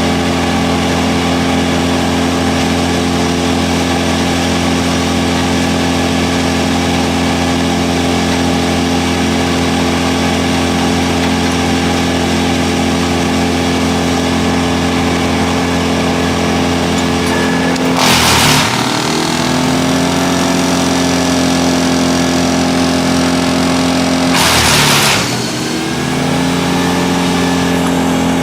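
Wood chipper's engine running at steady speed, twice dragged down briefly by a short, loud crunching burst as wood is chipped, its pitch dipping and then climbing back each time.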